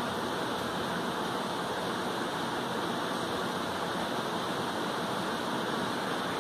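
Heavy rain falling outside, a steady, even rush of noise.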